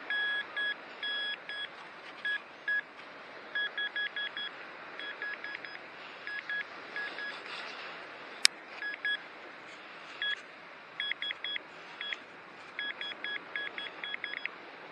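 Handheld metal-detecting pinpointer beeping as it is probed through beach sand. Single beeps and short quick runs of a high tone come faster and closer together in the second half as it homes in on a buried metal target. A single sharp click about halfway through.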